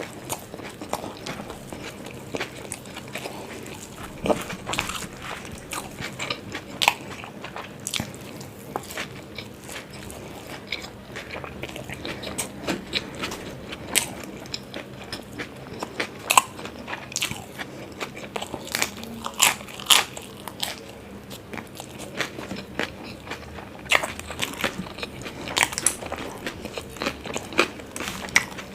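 A person biting and chewing crisp stuffed parathas close to the microphone: irregular crunches and wet mouth clicks throughout.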